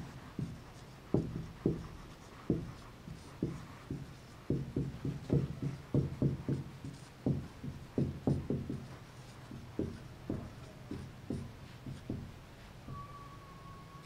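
Chalk writing on a blackboard: a quick, irregular run of chalk taps and short scrapes as a line of words is written, thinning out near the end.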